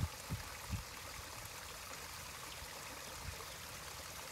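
Hands moving in shallow pond water against a steady sound of running water, with a few low thumps in the first second.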